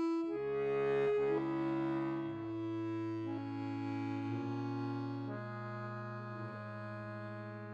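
Accordion playing slow, held chords that change every second or two, gradually fading out.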